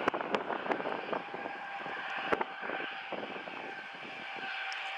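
Boeing 737-700 airliner's CFM56-7 turbofan engines running at a distance as it rolls on the runway: a steady jet rush with a faint whine, growing a little louder near the end. Gusty wind crackles on the microphone in the first half.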